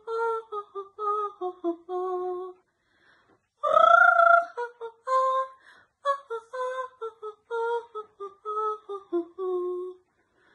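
A woman singing a slow tune unaccompanied, in phrases of held notes with brief silent breaks; the loudest, highest phrase comes about four seconds in.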